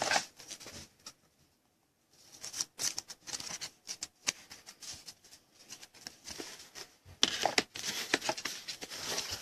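Trading cards and plastic card sleeves being handled: light rustling and scattered small clicks. There is a quiet gap about a second in, and the rustling grows denser at about seven seconds in.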